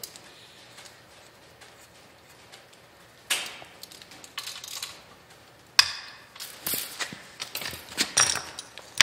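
Hand tools and steel suspension parts of a Model A Ford front axle clinking and knocking: a short scrape about three seconds in, then a sharp click and a run of small metal clinks and knocks near the end.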